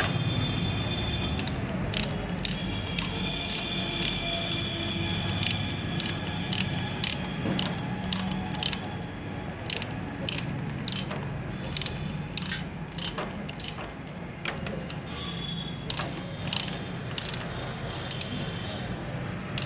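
Ratchet wrench clicking in irregular runs as the engine oil drain nut is screwed back in and tightened, over a steady low hum.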